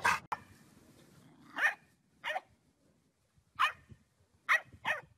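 A dog barking: five short, single barks at uneven intervals.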